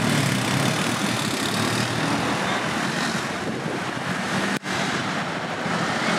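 Steady street traffic noise from vehicles driving on a wet city road: a low running rumble with a hiss on top. It cuts out very briefly once, a little past halfway.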